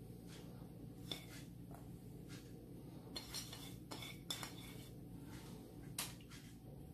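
Light, scattered clicks and taps of a ceramic plate and fingers as strips of sliced sausage are picked off it and dropped onto parchment on a baking tray, the sharpest clicks about a second in, around four seconds in and about six seconds in, over a low steady hum.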